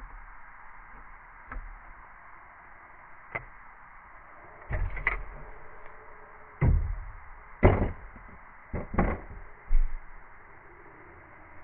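Irregular knocks and clunks, about eight, from hands and tools working on a rooftop RV air conditioner, the loudest ones in the second half, over a steady hiss.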